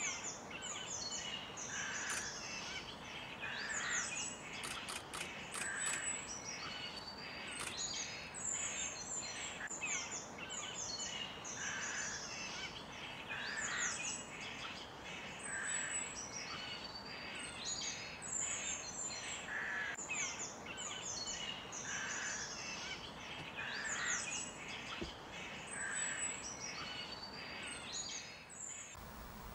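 Birds chirping and calling over a steady background hiss, with short high descending whistles and chirps repeating in a similar phrase about every two seconds.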